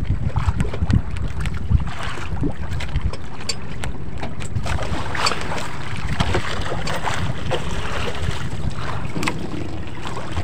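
Wind buffeting the microphone on a small outrigger boat at sea, a steady low rumble, with scattered short swishes and knocks as a fishing handline is hauled in hand over hand.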